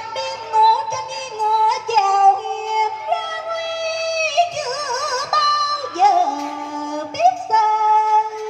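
A woman singing a cải lương (Vietnamese reformed-opera) excerpt through a microphone and PA, in long held notes whose pitch wavers, over live instrumental accompaniment.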